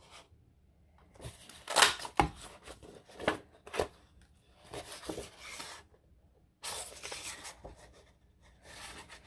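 Cardstock being cut and handled for journal tabs: a few sharp clicks in the first four seconds, then several short rustling, scraping bursts of paper.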